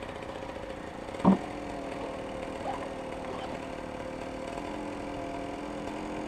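Dirt bike engine idling steadily, with one short, sharp knock about a second in.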